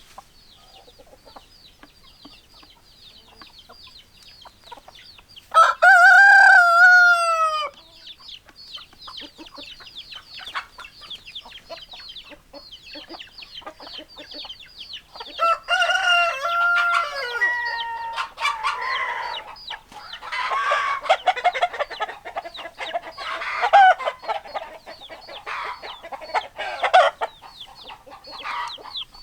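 Chickens: a rooster crows loudly once about six seconds in and again more quietly around sixteen seconds, while hens cluck and squawk busily through the second half. A fast, high chirping runs underneath throughout.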